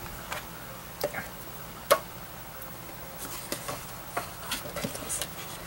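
Scattered light clicks and taps of paper and craft supplies being handled on a cutting mat, with one sharper tap about two seconds in.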